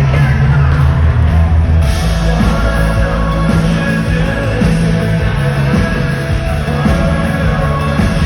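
Rock band playing loudly, with a steady beat and bass under the instruments and some singing.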